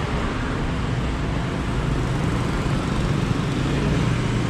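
Busy street traffic: a steady rumble and hiss of passing motor vehicles.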